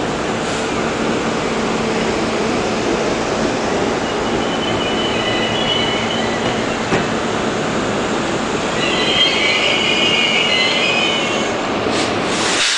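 A Budd-built R32 subway train rolling slowly past with a steady rumble of steel wheels on the rail. The wheels squeal high-pitched twice, a couple of seconds in the middle and again longer toward the end, and there is a sharp clack near the end.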